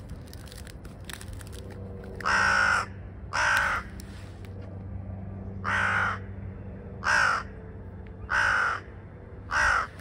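Hooded crows cawing: six harsh caws in three pairs, each pair about a second apart.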